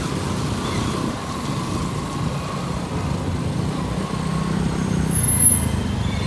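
Vehicle engine and road noise heard while riding: a steady low rumble with a faint wavering whine. About five seconds in there is a brief high-pitched sound.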